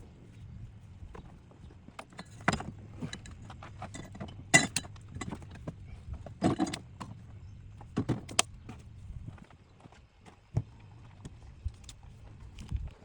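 Parts and tools being handled during reassembly: scattered small clicks, knocks and rattles, the loudest two sharp knocks about four and a half and six and a half seconds in.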